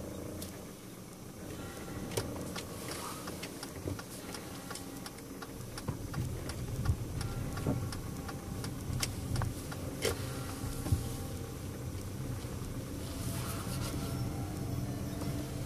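A vehicle running slowly over a concrete-slab road: a steady low engine hum that grows louder about five seconds in, with many irregular knocks and rattles, the sharpest a few seconds apart in the middle.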